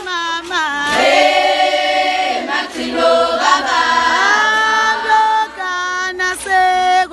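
A large crowd of young Zulu women singing together in high voices, holding long notes with some glides.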